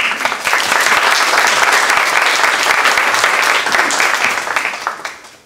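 Audience applauding, starting abruptly and dying away over the last second or so.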